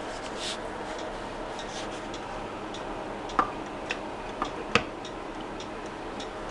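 Mid-1980s regulator wall clock in a teak case ticking, heard from close inside the case, over a steady faint hum. Several sharper, louder clicks stand out in the second half.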